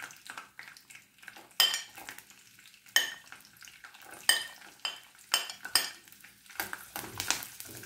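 Whole garlic cloves dropped into hot sesame oil in a stainless steel kadai, sizzling softly, while a metal spoon clinks and scrapes against the plate and pan about six times as the cloves are pushed in.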